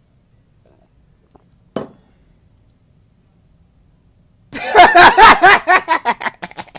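A young man bursting into loud laughter, a quick run of ha-ha pulses starting about two-thirds of the way in. A single short knock sounds near two seconds.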